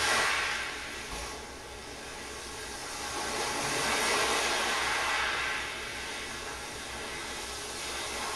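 Sea waves washing in, a rushing noise that swells and ebbs slowly, loudest at the start and again about four to five seconds in. Heard as a loudspeaker playback of JBL 4344 speakers picked up by a microphone.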